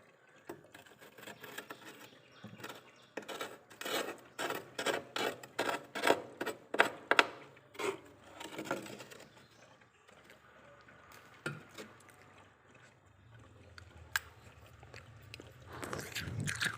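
A metal utensil scraping freezer frost in repeated short strokes, about two a second, heaviest in the first half and sparser later.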